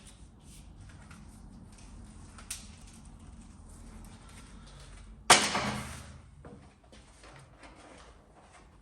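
Workshop handling noises over a low steady hum: a light click about two and a half seconds in, then a single sharp knock about five seconds in with a short ringing tail.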